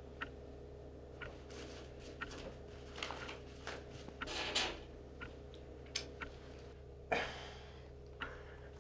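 Small handling sounds of a card game at a table: sparse soft clicks and taps over a steady low hum, with a short breathy rustle about halfway through and a sharper slap about seven seconds in.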